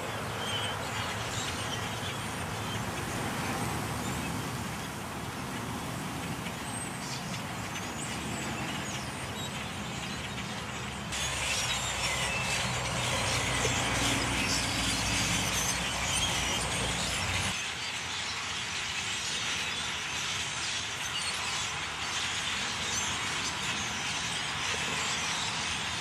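A large flock of blackbirds calling all at once, a dense high chatter that grows much thicker and louder about eleven seconds in. Under it runs a low rumble that stops abruptly about two-thirds of the way through.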